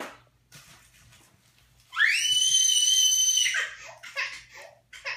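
A young child's high-pitched scream, beginning about two seconds in: it rises sharply, then holds for about a second and a half.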